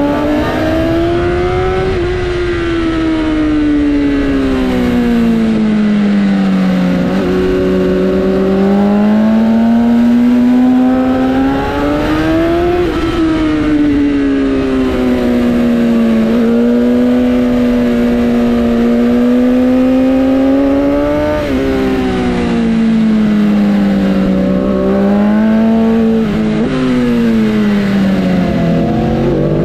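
Sport bike engine at high revs, its pitch rising and falling in long sweeps as the throttle opens and closes, with a few sharp drops in pitch.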